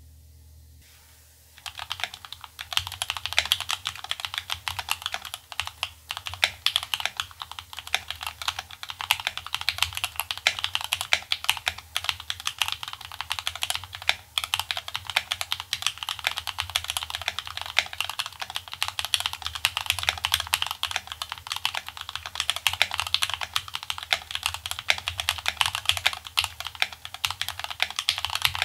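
Fast, continuous typing on a Feker Machinic 02 mechanical keyboard with Gateron Milky Yellow Pro linear switches and ABS keycaps, modded with PE foam, a tape mod and lubed stabilizers. The dense run of keystrokes starts just under two seconds in.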